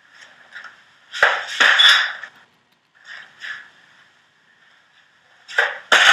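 A dodgeball thrown and striking a hard surface: a loud thump about a second in, then a second thump near the end, each followed by about a second of rattling noise.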